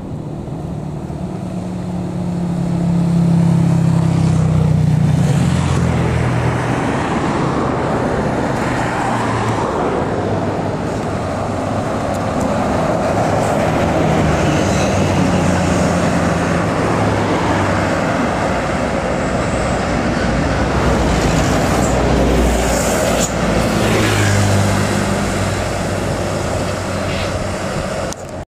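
Heavy road traffic passing close by on a bend: diesel engines of buses and trucks running, with tyre and road noise. The engine hum swells as one vehicle goes by a few seconds in and as another passes near the end.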